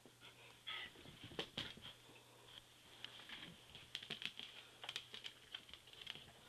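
Quick, light ticks and taps of two dachshunds' paws and claws on the floor as they scamper and tussle in play, thickest about four to five seconds in.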